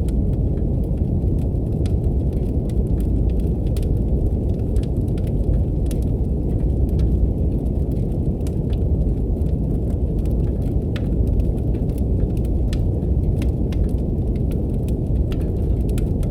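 Brown noise, a steady deep rush, mixed with a fireplace crackling: scattered sharp snaps and pops of burning wood at irregular moments.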